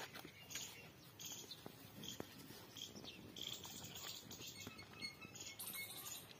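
Streams of buffalo milk squirting into a pail during hand milking: short hissing spurts, about one or two a second, in an uneven rhythm.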